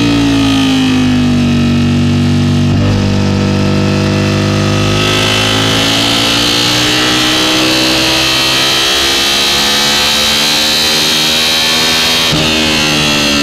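Aprilia sportbike engine at racing speed, heard from onboard: its pitch falls as the bike slows for a bend, with a gear change about three seconds in. It then climbs steadily under hard acceleration and drops sharply at an upshift about a second before the end.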